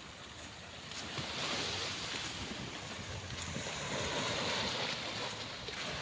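Small waves breaking and washing up a sandy beach, the surf swelling about a second in and again near the end, with wind buffeting the microphone.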